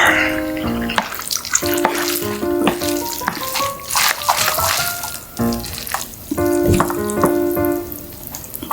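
Close-miked wet eating sounds, chewing and slurping with many small crackly clicks, over background music with a simple melody.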